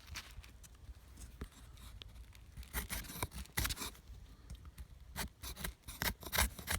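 Camillus Titanium Model 19308 knife shaving a wooden stick into a feather stick: a series of short scraping strokes of the blade along the wood, coming faster in the second half.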